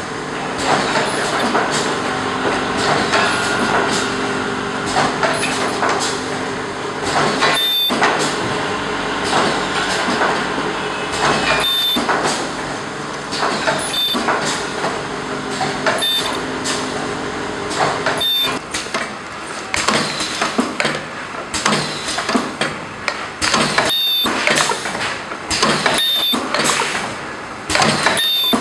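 Semi-automatic ultrasonic tube filling and sealing machine running: a steady mechanical hum, with a sharp knock about every four seconds as its rotary tube table indexes from station to station.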